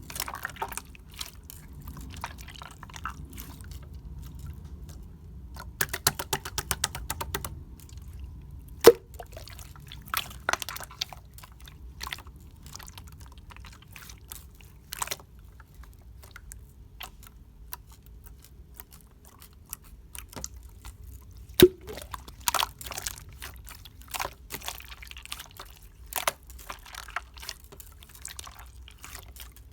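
Clear blue glitter slime being played with by hand: wet, sticky clicking and popping. There is a run of rapid crackles about six seconds in, and two sharp pops, one near nine seconds in and one about twenty-two seconds in.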